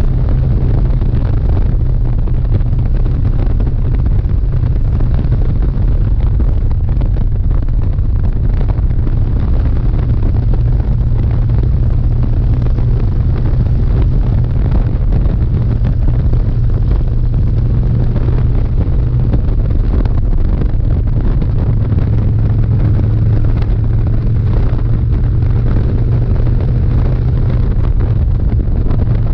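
Harley-Davidson Dyna's V-twin engine running steadily at highway cruising speed, a constant low drone mixed with wind rushing over the microphone.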